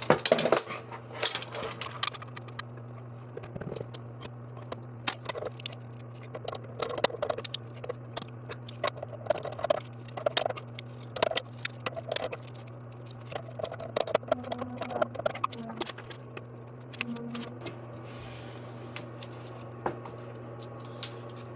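Bidet seat parts and fittings being handled and fitted by hand: irregular clicks, light taps and scrapes, over a steady low hum.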